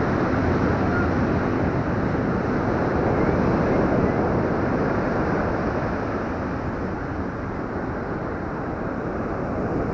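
Steady rush of ocean surf washing up the beach, mixed with wind buffeting the microphone, easing slightly after about six seconds.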